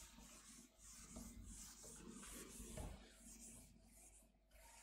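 Faint, repeated swishing of a chalkboard being wiped clean, about two strokes a second, with a few soft knocks against the board.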